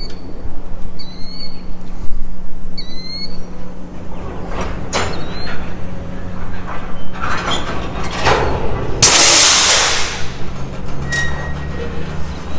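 Freight train of covered hopper cars crawling past, with a steady low hum and rumble. High squeaks repeat about every second and a half in the first few seconds, and a short loud hiss comes about nine seconds in.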